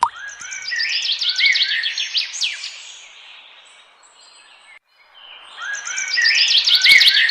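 Small songbird singing: a rapid run of high chirps and short trills that fades out, then the same phrase begins again after a brief break about five seconds in.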